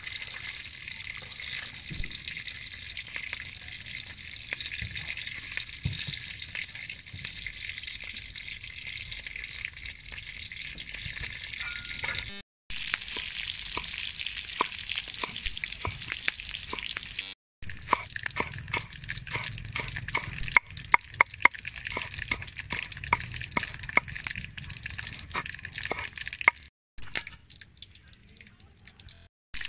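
Cleaver chopping spring onions and chillies on a wooden chopping board: a run of quick, sharp knocks, loudest about two-thirds of the way through, over a steady high hiss.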